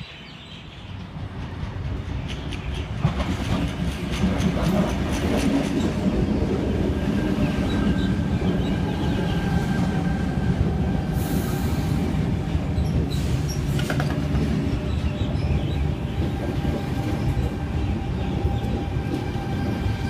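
An eight-car Sydney Trains Tangara electric train arriving and running in alongside the platform. Its rumble and wheel clatter build over the first few seconds and then hold steady, with a steady high whine in it from about eight seconds in.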